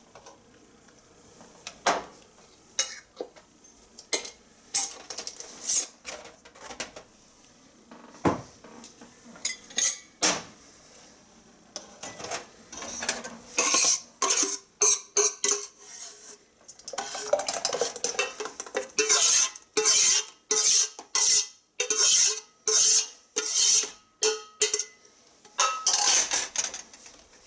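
Metal ladle scraping and clinking against the inside of a stainless steel pot, scooping out the last of the jam, with scattered scrapes at first and then a quick run of strokes about two a second in the second half.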